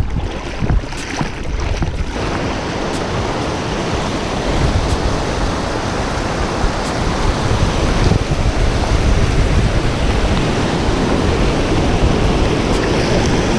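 Shallow creek water rushing over a rocky riffle close to the microphone, a steady rush that gets a little louder after a few seconds. A few irregular splashes in the first two seconds.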